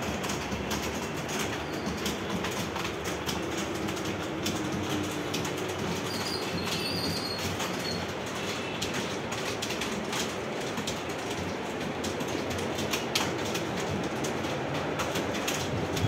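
Many computer keyboards being typed on at once in a room of typists: a dense, steady clatter of key clicks.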